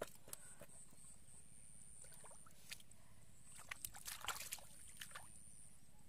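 Bare feet stepping and sloshing in a shallow muddy puddle: small, scattered splashes and squelches, with a cluster of them about four seconds in.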